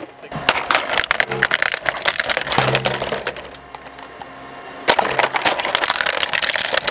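Twin-shaft shredder's steel cutters cracking and crunching camouflage plastic toys, over the steady hum of its motor. The crunching dies down for a couple of seconds, then comes back suddenly and loudly about five seconds in as another toy is fed in.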